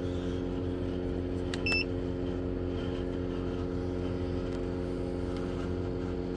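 12V under-bunk campervan air conditioner running with a steady, multi-toned hum from its compressor and fan; the compressor is working hard and still drawing a lot of power. A single short electronic beep sounds a little under two seconds in.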